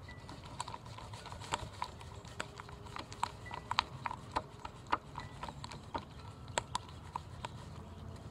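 A spoon stirring slime in a plastic cup, making irregular clicks and taps about two or three times a second. A steady low rumble of wind on the microphone lies under it.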